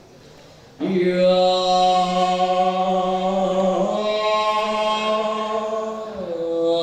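A solo voice chanting Balinese dharma gita sacred verse, drawing out long, held notes. It comes in after a short pause near the start and steps to a new pitch twice.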